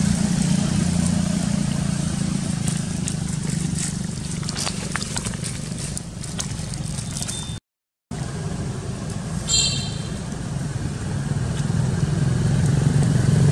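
A steady low engine hum runs underneath, with light crackles of dry leaves and a short high chirp about nine and a half seconds in.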